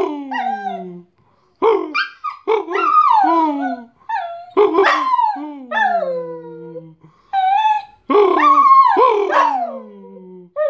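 Dog howling, its "singing": a run of long, wavering howls, each sliding down in pitch at its end, with brief breaths between them and a new howl starting near the end.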